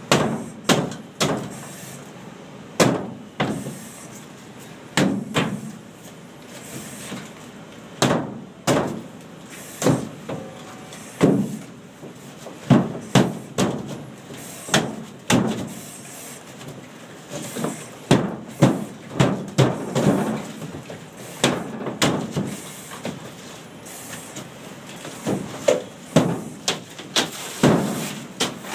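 Irregular series of sharp knocks and cracks as drywall is struck and broken through: a halligan bar punching holes in the gypsum board, then boots and gloved hands kicking and pulling into the holes. A piece of wallboard breaks away near the end.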